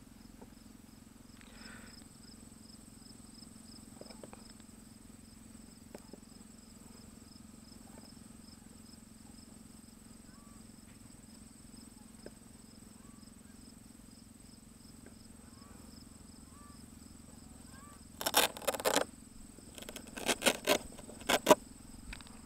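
Faint outdoor ambience with an insect trilling steadily in fast, even pulses. Near the end come several short, loud bursts of noise.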